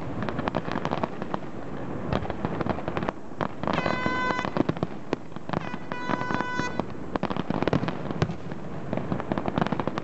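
Fireworks display: a continuous run of bangs and crackling from aerial shells bursting, with no let-up.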